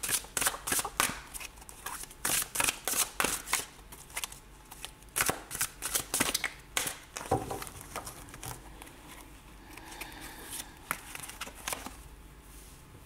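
A deck of large oracle cards shuffled by hand, with quick runs of cards slapping and flicking against each other; the shuffling thins out and quietens after about seven seconds. Just before the end a single card is set down on the table.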